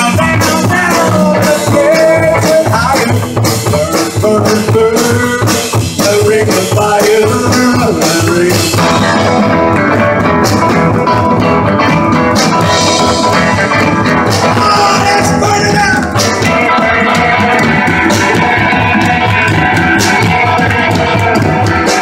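Live rock band playing: guitar and drum kit, with a lead line winding up and down through the first several seconds before the music settles into a steadier groove.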